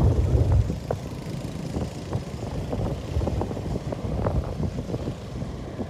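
Wind rumbling on the microphone of a moving motorcycle, with the motorcycle's running noise underneath; loudest at the start, easing about half a second in.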